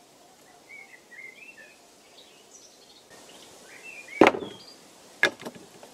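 Small birds chirping in woodland, then two hard wooden knocks about a second apart as a wooden cutting board is brought down on a plank table, the first the louder.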